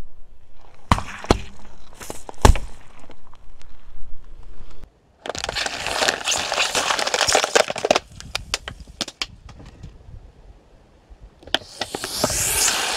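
A car tyre rolling onto things and crushing them. First a lemon gives a few sharp cracks. Then plastic soda bottles packed with water beads crackle and split in a dense burst lasting about three seconds. Near the end a squashed dish soap bottle sprays liquid out with a hiss.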